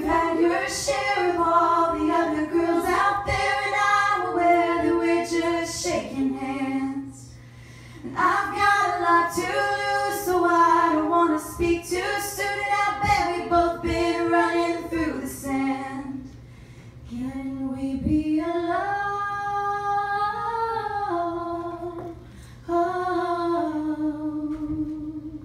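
A woman singing live into a microphone, with long held notes in phrases broken by short pauses, the music carried mainly by her voice.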